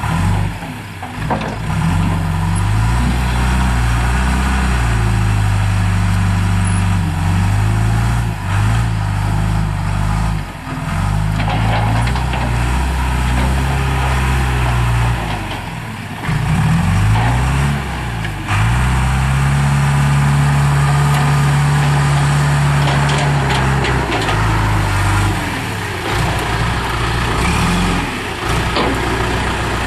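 John Deere 310E backhoe loader's diesel engine running while the machine is worked, its speed rising and falling with the load. Past the middle it revs up and holds a higher, steady speed for several seconds, then drops back.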